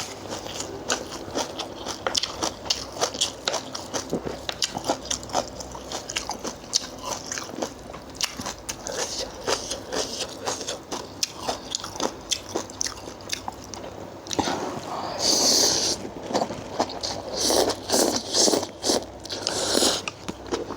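A person chewing and crunching a mouthful of spicy Thai seafood salad close to the microphone, a steady run of small crunches, with louder stretches of chewing from about fourteen seconds in.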